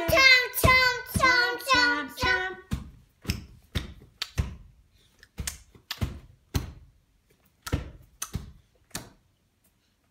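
Hands slapping a plastic high-chair tray, about two sharp pats a second. A child's high-pitched sing-song voice runs over the first two or three seconds.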